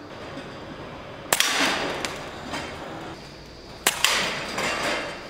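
Two shots from an Air Arms Ultimate Sporter, a sub-12 ft-lb pre-charged air rifle, about two and a half seconds apart. Each is a sharp crack followed by about a second of a feral pigeon's wings flapping.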